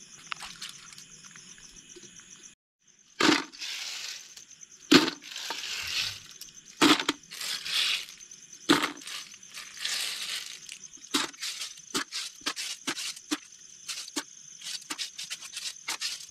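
Snail shells clinking and cracking in a run of sharp, irregular clicks, starting about three seconds in, over a steady high chirping of insects.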